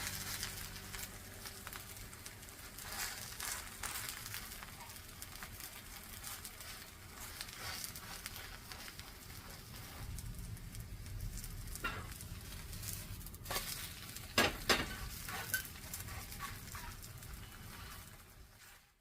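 Vegetable pancakes sizzling in oil in a frying pan, a steady crackle. A few sharp clicks come partway through, and the sound fades out at the end.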